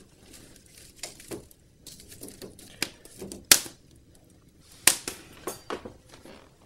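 Wood fire crackling in an open fireplace: irregular sharp pops and snaps, loudest about three and a half and five seconds in.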